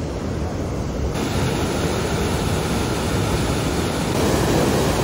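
Steady rushing of water pouring over a dam. It grows a little louder about a second in and again near the end.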